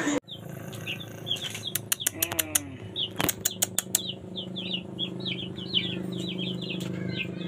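Small birds chirping in rapid, high-pitched chirps, several a second, keeping on throughout. Several sharp clicks come in the first half, over a steady low hum.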